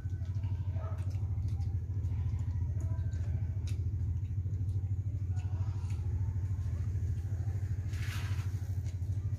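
A steady low rumble like a motor running, with faint scattered clicks and a brief hiss about eight seconds in.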